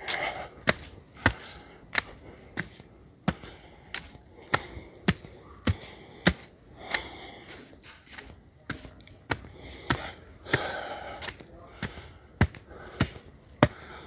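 Footsteps climbing concrete stairs: sharp, even steps at a walking pace, about one every 0.6 seconds.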